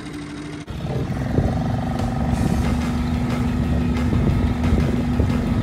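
A small motorboat's engine running steadily, a constant hum over rough low rumble, which gets suddenly louder about two-thirds of a second in.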